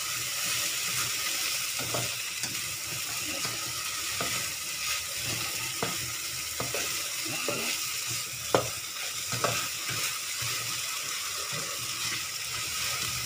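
Okra with pounded anchovies and chillies sizzling in a nonstick wok, stirred with a spatula that scrapes and knocks against the pan: a steady sizzle with scattered knocks, the sharpest about eight and a half seconds in.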